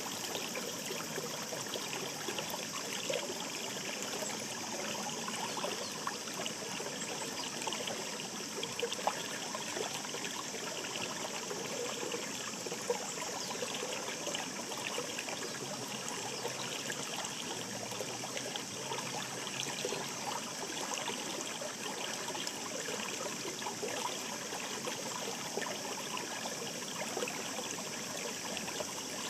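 Mountain stream babbling and trickling over stones, a steady flow with many small splashes.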